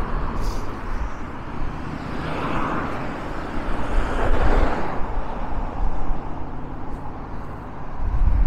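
Cars driving past on the road, their tyre and engine noise swelling twice, loudest about four seconds in.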